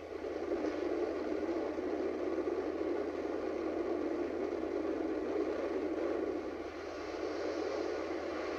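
Steady rush of wind and aircraft engine noise at the open door of a single-engine jump plane as a tandem skydiving pair sits in the door and exits. It starts abruptly and stays steady.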